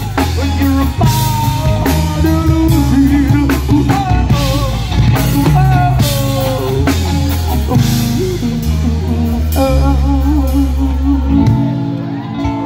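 Live rock band playing loudly: a singer over electric bass, guitar and a full drum kit. The bass drops out near the end.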